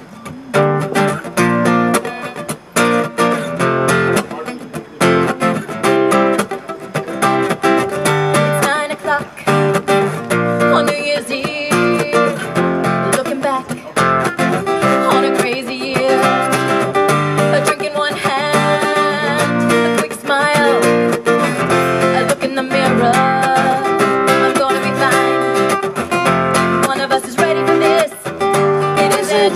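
Live acoustic guitar strummed and picked, playing a song's opening, with a singing voice joining partway through.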